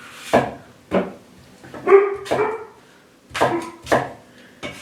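A dog barking several times in short, separate barks.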